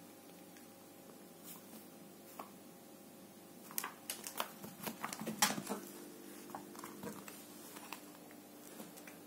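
A Sphynx cat pouncing and scampering on a carpet during play: about four seconds in comes a quick flurry of light taps, scrabbles and rustles, then a few scattered soft taps, over a faint steady hum.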